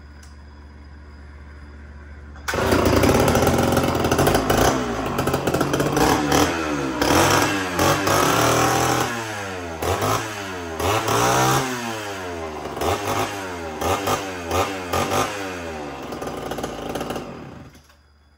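Homelite two-stroke chainsaw with the chain taken off the bar, revving unloaded. It opens up suddenly about two and a half seconds in, climbing and falling in pitch, then gives short throttle blips about once a second before stopping suddenly near the end.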